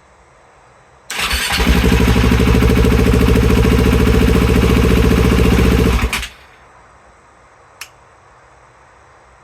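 2020 KTM 690's single-cylinder engine turning over on the starter for about five seconds, then stopping abruptly without settling into an idle: a hard start. A short click follows a couple of seconds later.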